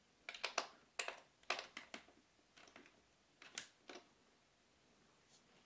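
Small metal key turning and rattling in the lock of a wooden watch-winder box's lid: a run of light, sharp clicks over a few seconds, some in quick pairs.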